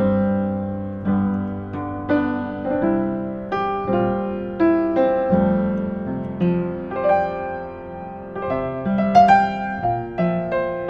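A 1960s upright piano being played: a slow, gentle passage of chords and melody, each note struck and left to ring and fade.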